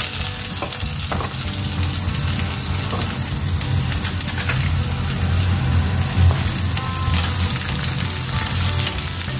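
Chopped onions sizzling and crackling in hot oil in a wok.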